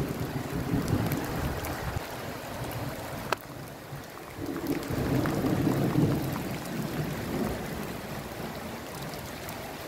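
Rain falling on wet paving, with muddy runoff water flowing across it. A low rumble swells about halfway through, and there is a single click just before it.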